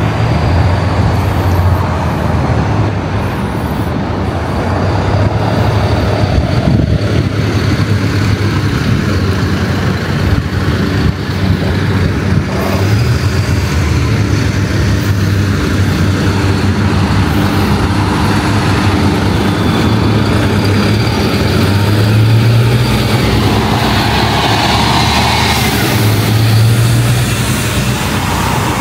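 Road traffic: a steady wash of cars and trucks passing on a street, with engine rumble swelling louder about three-quarters of the way through.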